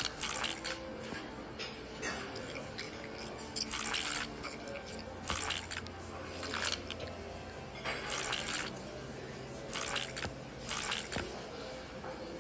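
Short noisy rustles, one every second or two, over faint background music.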